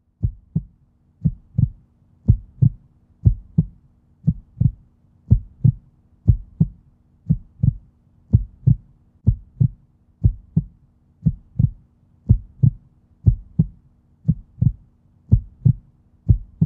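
Heartbeat sound effect: pairs of short low thumps in a lub-dub pattern, about one pair a second, over a faint steady low tone.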